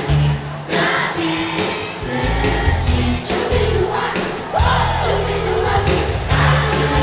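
Loud music with a heavy bass beat, cymbal hits and singing voices.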